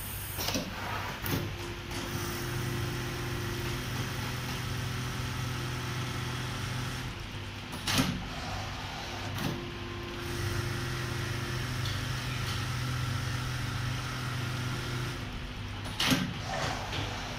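Automated single-needle lockstitch CNC sewing machine running a stitch run around a PVC template, a steady motor hum. It stops about halfway with a sharp click and a couple of knocks, then runs again, ending with another sharp click near the end.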